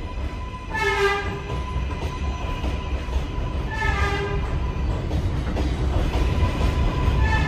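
R188 subway train rolling slowly along the platform: a steady low rumble with a faint steady high tone, and a short ringing whine three times, about three seconds apart, as the cars go by.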